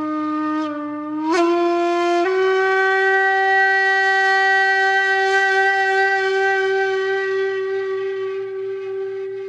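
Shakuhachi bamboo flute playing a slow, breathy solo line in traditional honkyoku style: a few short notes stepping upward in the first two seconds, then one long held note that slowly fades.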